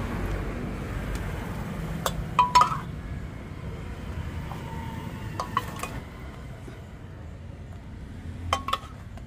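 Serving spoon clinking against plates as curry is dished out. Sharp clinks come in small groups, about two seconds in, again halfway through and near the end, a couple of them ringing briefly.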